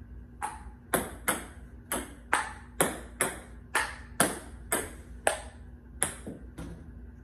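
Table tennis ball bouncing between paddle, table and wall in a solo practice rally: about fifteen sharp clicks, roughly two a second, stopping near the end.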